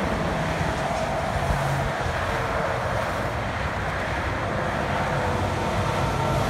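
Steady highway traffic noise: a stream of cars and trucks passing below, their tyres hissing on the pavement, with no single event standing out.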